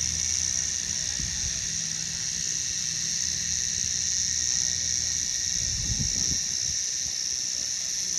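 Cicadas droning in a steady, high-pitched chorus. Underneath runs a low hum that drops away about five seconds in, and there is a brief low swell about six seconds in.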